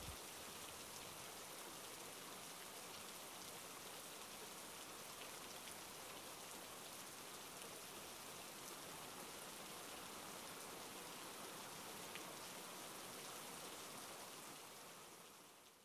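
Steady rainfall, a faint even hiss of many drops, fading out over the last second or so.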